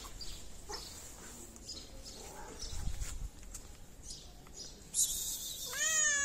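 A cat meows once, a drawn-out call near the end. Just before it comes a short hissy scuff.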